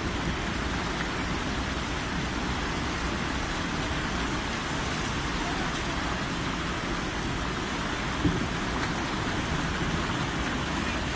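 Heavy rain pouring down, a steady even hiss, with a single brief knock about eight seconds in.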